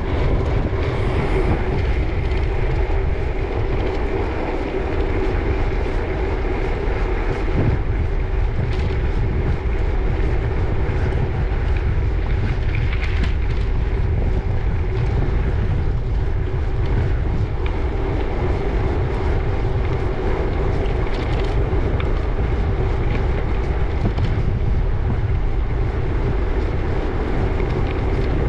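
Wind rumbling on the microphone of a moving gravel bike, over a steady hum of tyres rolling on the road.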